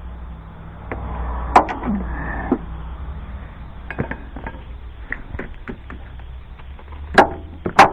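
Metal hand tools clinking and knocking against each other and against engine parts as a wrench and socket are worked onto a power steering hose fitting. It comes as a string of separate sharp clinks, the loudest near the end, over a low steady hum.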